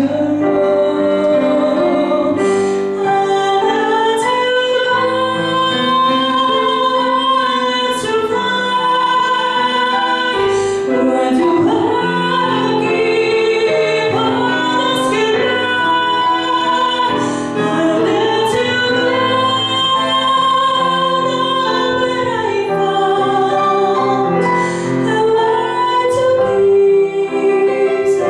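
A woman singing a slow ballad, accompanied by chords on a digital piano. She holds long notes: some are held straight, and others waver with vibrato.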